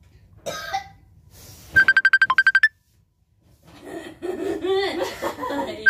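A quick run of about ten sharp electronic beeps in under a second, about two seconds in, like a phone ringtone or an edited-in beeping sound effect. Wavering pitched, voice-like sound follows near the end.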